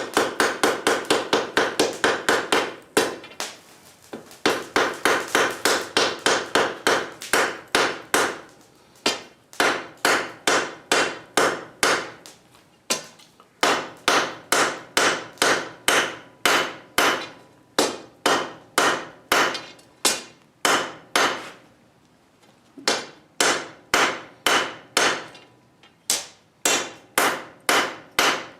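Hand hammer striking hot folded steel on an anvil in quick runs of blows, about four a second at first and slower later, with short pauses between runs and the anvil ringing under each strike: hammering to set a borax-fluxed forge weld.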